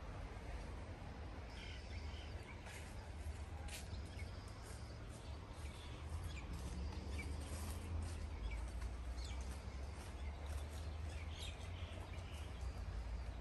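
Outdoor park ambience: scattered short bird chirps over a steady low rumble.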